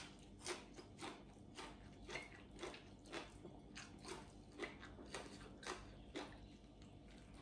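Faint mouth sounds of a person chewing fresh garlic chive leaves: wet smacks of the lips and tongue, about two a second.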